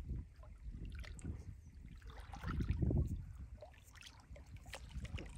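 Water sloshing and splashing around a person wading waist-deep in a muddy pond, in uneven surges, loudest about halfway through.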